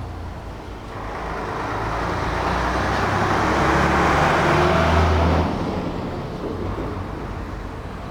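A road vehicle passing by: engine and tyre noise builds over a few seconds, is loudest about five seconds in, then fades as it goes away.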